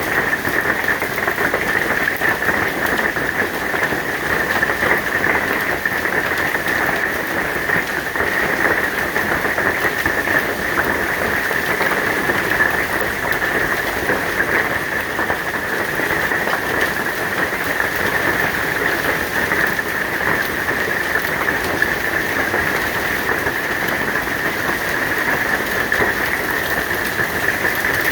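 Hailstones pelting down in a summer hailstorm: a dense, steady clatter of countless small impacts.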